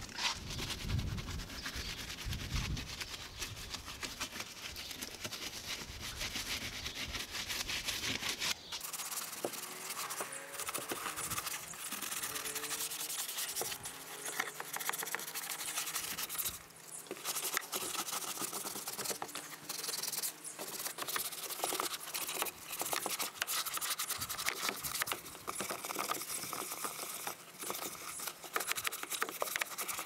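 Small detailing brush scrubbing wet, soapy paint and the plastic inside a truck's fuel filler door: a continuous scratchy brushing made of many quick strokes.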